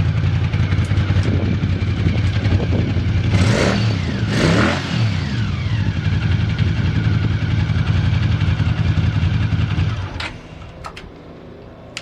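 Honda GL700 Interstate's V-twin engine idling steadily. It is blipped twice, its pitch rising and falling about three to five seconds in, then it shuts off abruptly about ten seconds in, leaving a few faint clicks. Its idle is stable with no abnormal noises.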